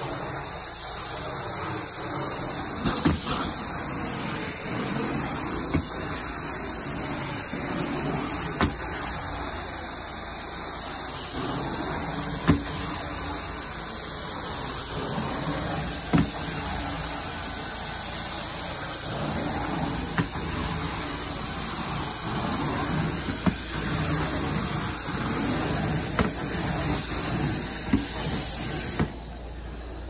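Carpet-cleaning machine running steadily with a hissing sound, with a sharp knock or click every two to four seconds; the sound drops noticeably quieter near the end.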